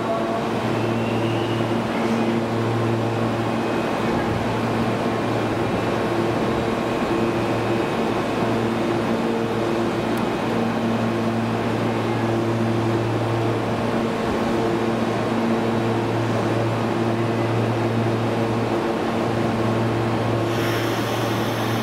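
Meitetsu 2000 series and 9500 series electric trains standing coupled at a platform: a steady hum of onboard equipment and air-conditioning fans, with several constant low tones. A hiss starts near the end.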